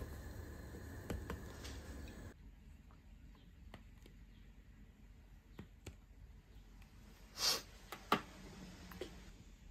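Instant noodles simmering in a small pot, stirred with wooden chopsticks that knock faintly against it. After about two seconds this gives way to a quiet room with a few faint clicks, and a short rush of noise followed by a sharp click near the end.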